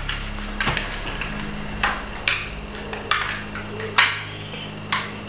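Sharp plastic clicks and taps, about half a dozen spread out, from the battery cover of a toy RC car's remote being slid shut and handled, over a faint low steady hum.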